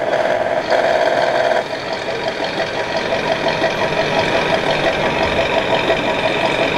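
RC model hot-rod truck's electronic engine sound module playing an idling engine through its small speaker, a pitched hum that settles into a rapid, even pulsing after about a second and a half.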